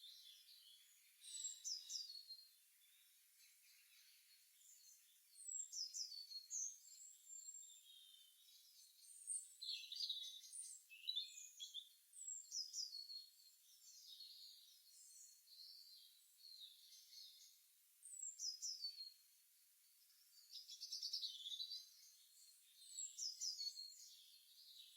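Songbirds chirping and singing, faint. High phrases that sweep down in pitch come every few seconds, with shorter chirps between them.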